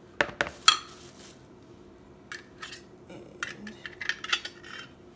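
Metal fork scraping and clinking against tin cans as drained tuna is dug out and knocked into a plastic bowl: a few sharp clinks in the first second, then scattered taps and scrapes.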